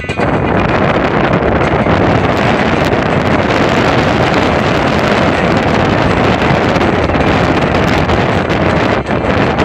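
Wind blowing hard over the microphone: a loud, steady rush of noise that dips briefly near the end.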